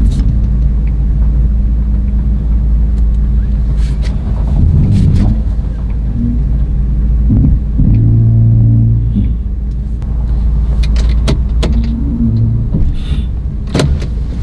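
Ford Super Duty pickup's engine running, heard from inside the cab as the truck backs up: a steady low hum that swells briefly about eight seconds in, with a few short clicks and knocks.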